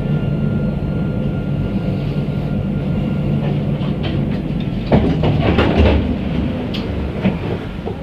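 A tram running along its track with a steady low rumble and a faint high whine. From about five seconds in, a run of clattering knocks comes in.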